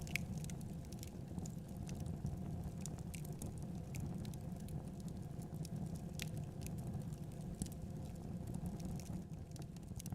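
Wood fire of burning logs crackling in a fireplace: irregular sharp pops and snaps over a steady low rumble of flame.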